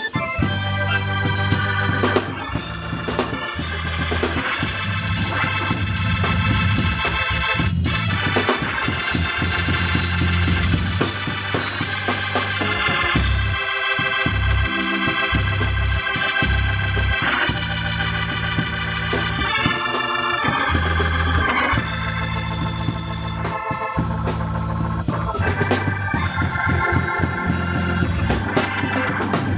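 Hammond organ playing gospel chords with a strong bass line, accompanied by a drum kit.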